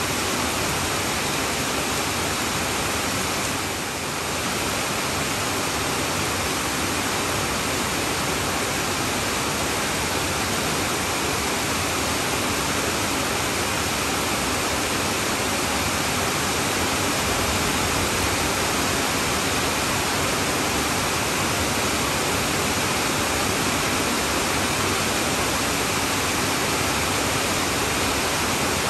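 Heavy rain falling on a tin roof: a steady, dense hiss, with a slight, brief dip in level about four seconds in.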